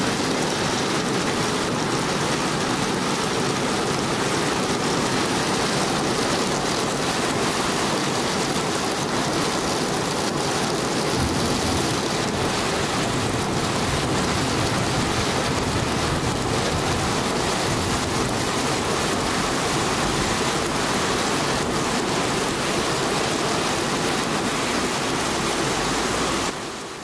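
Torrential rain pouring down in a dense, steady hiss, a summer cloudburst at full strength. It fades out right at the end.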